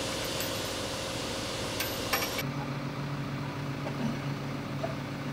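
Steady mechanical hum of workshop machinery, with two light clicks about two seconds in. Shortly after, the hiss above it cuts off and a lower, steadier hum carries on.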